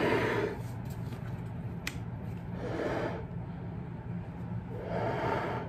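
A person blowing hard three times inside a closed full-face motorcycle helmet, breathing onto the visor to test it for fogging; each breath is a short rush of air, about two and a half seconds apart.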